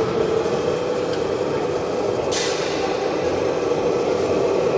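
Radio-controlled tow truck model driving, giving a steady mechanical drone, with a short hiss about two and a half seconds in.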